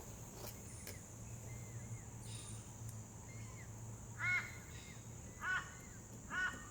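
A crow cawing three times, about a second apart, in the second half, with a few faint clicks before.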